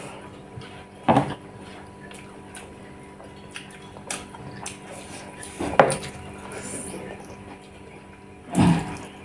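Eating rice and chicken by hand from plates: soft clicks and rustles of fingers and food against the plates, with three louder clinks or knocks of dishes, about a second in, near the middle and near the end.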